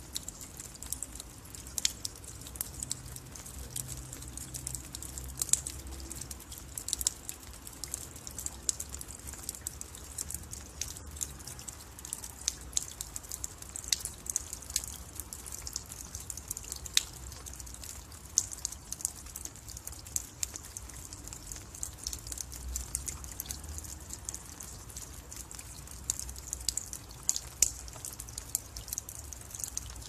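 Rain dripping: a steady scatter of sharp, irregular water drops, several a second, with a low rumble underneath.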